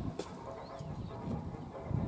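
A few short, high bird chirps over a low rumble.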